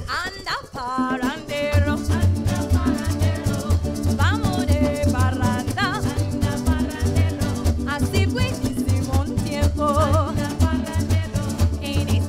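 Live Trinidad parang music: acoustic guitar and cuatro strumming under a group of singers, with a steady bass line. The bass drops out for about the first second and a half while a singer slides up to a high held note, then the beat comes back in.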